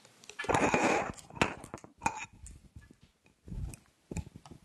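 Handheld microphone being handled and passed to the next speaker: a loud rustle about half a second in, then several knocks and low thumps.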